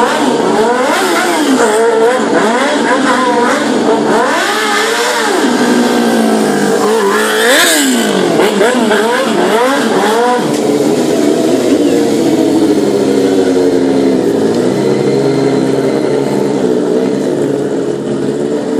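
Sport motorcycle engine being revved hard in quick up-and-down sweeps during stunt riding, with one sharp high rev about halfway through. For the last several seconds it settles into steadier running.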